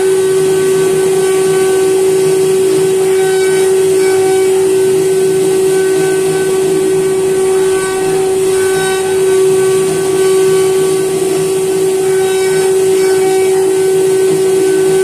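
CNC router spindle running with a steady high whine as its bit carves a wooden board. Fainter higher tones come and go every second or so as the head moves along its cutting path.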